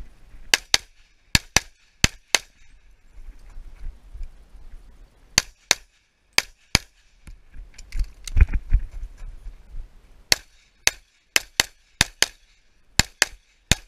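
Pistol shots fired in quick pairs during a timed defensive pistol course of fire: about twenty shots in four strings (six, then four, then about seven, then four), with pauses between strings. A low rumble comes about eight seconds in.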